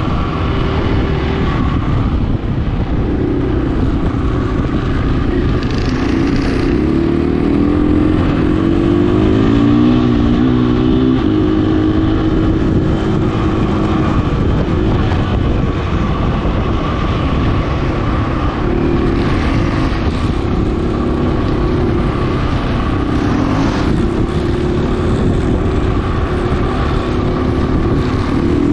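A motor vehicle's engine running under way, its note rising and falling, over a continuous heavy rumble.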